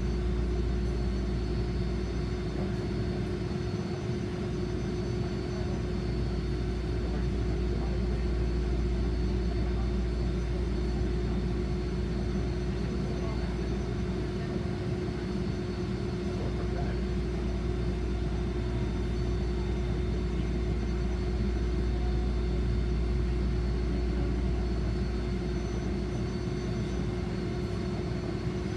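Steady hum inside a standing tram: a constant low rumble with a fixed tone from the tram's onboard equipment running while the car waits.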